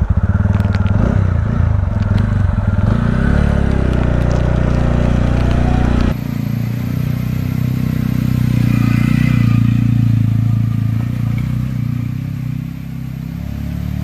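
TVS Ronin's 225 cc single-cylinder engine running steadily. After a cut, the bike rides on with the engine pulling harder, rising around the middle and easing off near the end.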